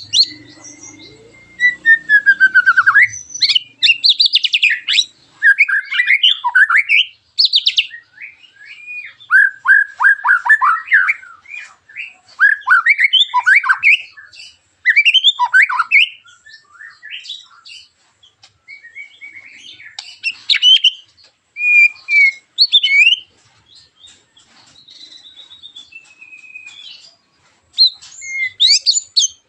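White-rumped shama (murai batu) singing sharp, harsh 'tembakan' phrases. Loud bursts of quick whistled notes, fast sweeps and slurs come in spaced bursts, with short pauses between them.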